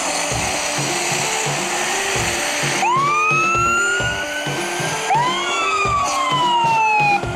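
Fire truck siren wailing, sweeping up and then gliding down twice over background music, with a rushing noise in the first few seconds.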